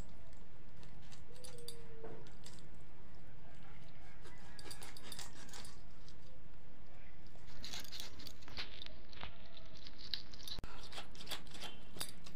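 A small knife cutting raw chicken by hand, giving scattered sharp clicks and ticks that come more often in the second half, over a steady background hiss.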